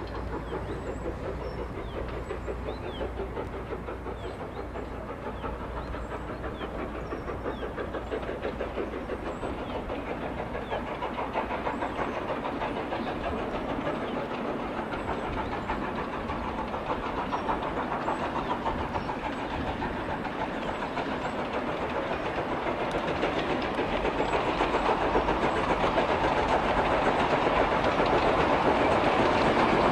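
Steam locomotive working hard with a train, its exhaust beating rapidly, growing steadily louder as it approaches.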